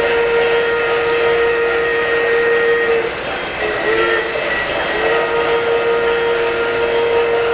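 An O-gauge model train's onboard sound system blowing its whistle as it passes a grade crossing: a long blast ending about three seconds in, a short one about a second later, then another long one, the end of the long-long-short-long crossing signal. Under it runs the steady rush of the train rolling over three-rail track.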